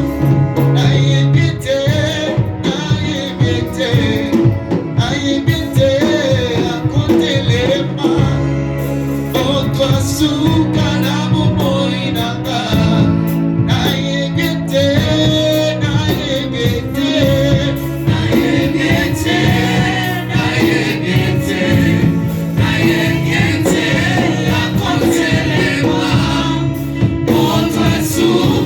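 Gospel music: a choir singing over instrumental accompaniment with held bass notes and a steady beat.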